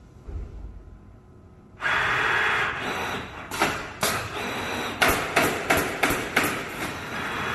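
Automatic canvas stretching and stapling machine running a cycle. A steady air hiss starts suddenly about two seconds in, followed by a rapid series of sharp staple shots as the staplers fire the canvas onto the wooden stretcher frame.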